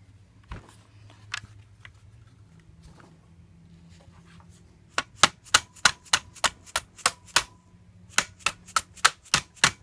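A small hammer tapping the takedown pins into a Kel-Tec RFB rifle's receiver, about three light taps a second: a run of about nine, a short pause, then about six more, with a faint ringing under the first run. A couple of soft knocks come first, about a second in.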